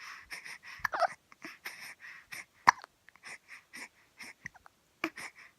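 A baby hiccupping: a series of short, sharp hiccups, the loudest a little under halfway through, with softer breathy catches between them.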